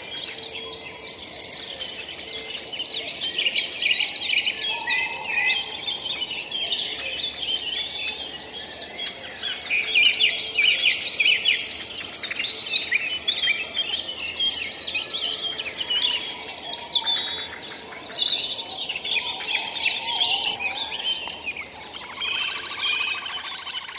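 Dawn-chorus-like mix of many songbirds singing at once, with overlapping chirps and fast trills and no break.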